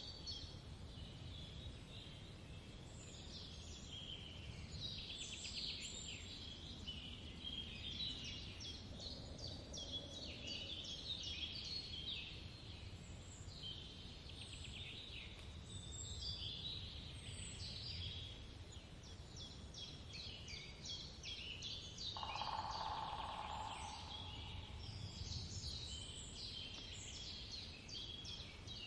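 Woodland birdsong: several birds chirping and trilling over a low background hiss, with a lower, steadier call lasting about two seconds around twenty-two seconds in.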